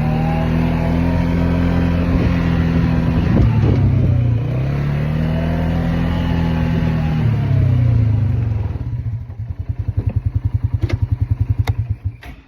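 Small vehicle engine running, its pitch rising and falling as it is driven, then dropping to a fast, even idle putter about nine seconds in and shutting off near the end.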